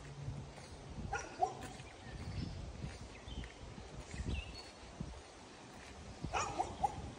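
Short, high animal calls heard in brief groups, a louder cluster of them near the end, over soft footsteps of someone walking on an asphalt driveway.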